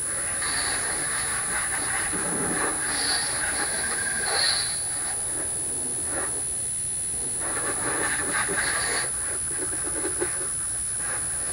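Water spraying from a garden hose nozzle onto a car's body, hissing in uneven surges, with a short lull a little after six seconds in.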